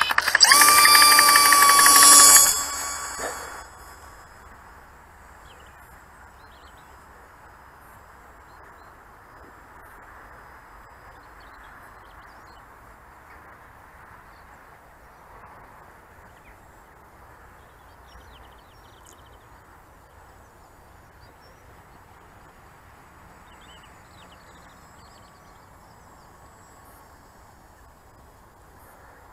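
Electric motor and propeller of a small model plane whining loudly at full power close by, the pitch rising slightly. About two and a half seconds in, the sound drops off sharply and fades within a second as the plane flies away, leaving only faint outdoor background.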